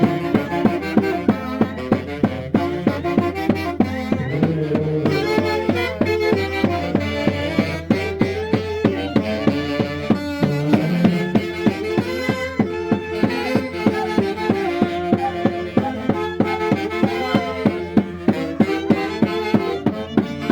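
A band playing Santiago dance music from Huancayo: a melody over a steady drum beat.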